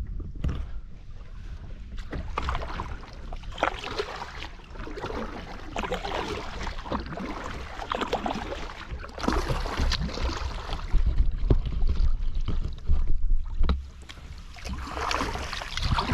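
Water splashing and lapping against a kayak hull, with wind rumbling on the microphone; the splashes grow louder for a few seconds past the middle.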